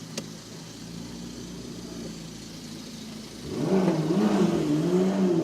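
McLaren MP4-12C's twin-turbo V8 running with a low, steady note, then about three and a half seconds in it suddenly gets much louder and revs, its pitch rising and falling.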